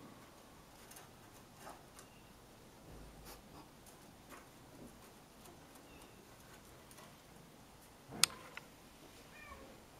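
Kittens' claws scratching and gripping the bark of a wooden branch as they scramble along it: faint scattered scratches and ticks. One sharp click comes about eight seconds in.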